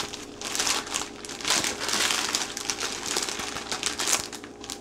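Plastic wrapper of an instant ramen noodle packet crinkling in the hands as it is turned over and handled, in irregular rustles.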